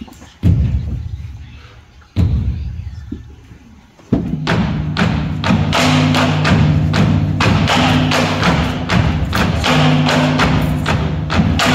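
Kulintang gong music for the Singkil dance. It opens with three slow, heavy gong strikes, each ringing away. About four seconds in, the full ensemble comes in: a melody of pitched gong tones over sharp percussion strikes coming about three a second.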